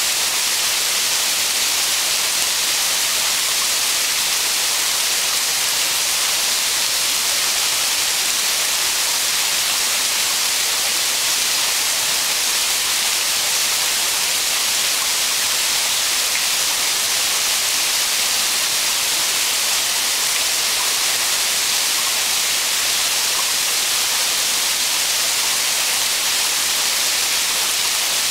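Waterfall, water pouring down a steep rock face: a steady, even hiss.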